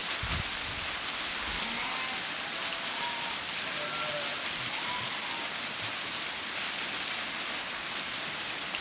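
Many sheep hooves shuffling through dry leaf litter as a flock walks past, a steady rain-like rustle and patter, with a few faint short calls behind it.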